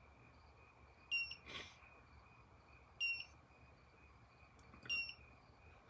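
Arduino-driven piezo buzzer giving three short, high-pitched electronic beeps about two seconds apart, over a faint steady high tone. It is the alarm set off by the photoresistor reading light above the coded threshold.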